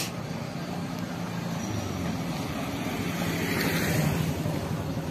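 Street traffic noise: a steady hum of road vehicles, with one passing closer and growing louder about three to four seconds in.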